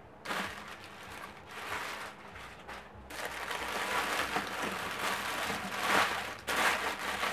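Crumpled brown packing paper rustling and crinkling as hands rummage through it in a cardboard box, patchy at first and then continuous and louder from about three seconds in.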